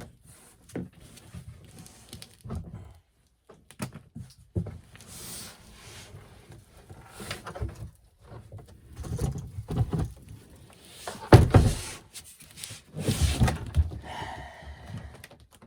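Irregular knocks, thunks and scraping of hands working back band fittings against a plastic kayak hull, loudest a little past halfway.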